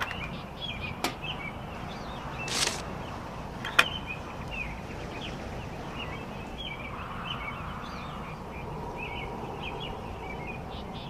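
Small birds chirping and twittering over a steady outdoor background hum. There is a short whoosh about two and a half seconds in and a single sharp click just after it.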